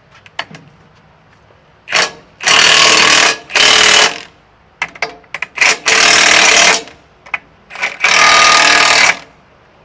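Impact wrench hammering on a tractor wheel's lug nuts in about four bursts of roughly a second each, with short trigger blips between them; the nuts are being tightened.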